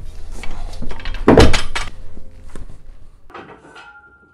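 Metal clanks and knocks of weight plates and barbell against a steel power rack, with one heavy clank about a second and a half in, then dying away.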